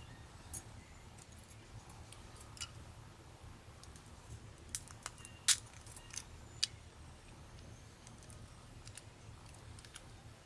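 Scattered small clicks and taps of Nikon Coolpix AW110 camera parts being handled and pried apart during disassembly, busiest in the middle, with the sharpest click about five and a half seconds in.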